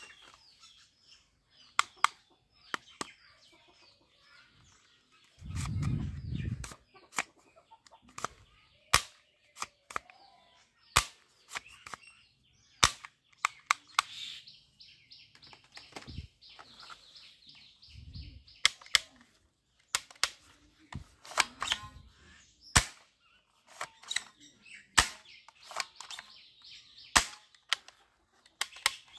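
Sharp, irregular clicks and knocks of hard plastic toy guns being picked up and handled, with birds chirping in the background.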